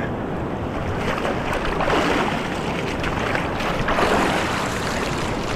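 River water rushing and splashing right at the microphone as a man moves about in the current, with two louder surges of splashing about two and four seconds in.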